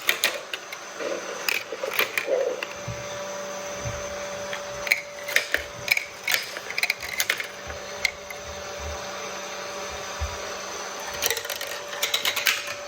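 Marbles rolling and clacking through a plastic marble run: irregular clicks and knocks, some louder than others, over a faint steady hum that sets in about three seconds in.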